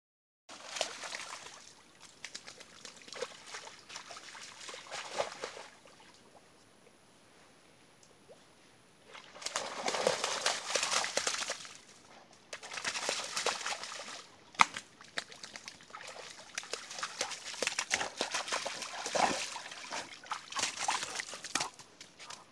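An Irish Setter splashing and wading through a shallow muddy puddle, water sloshing in irregular bursts that stop for a few seconds before the middle, with one sharp click a little past the middle.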